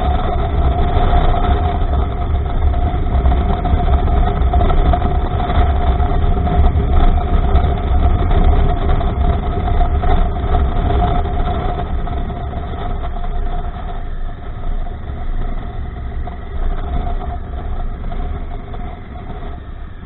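Honda Africa Twin's parallel-twin engine running at a steady pace on a dirt road, under a low wind rumble on the microphone. It grows quieter over the second half as the bike slows.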